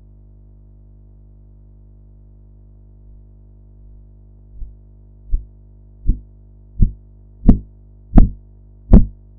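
Korotkoff sounds through a stethoscope as the blood pressure cuff deflates: rhythmic tapping pulse beats, about one every three-quarters of a second, begin faintly a little under halfway in and grow louder with each beat, over a steady low hum. The first taps mark the systolic pressure.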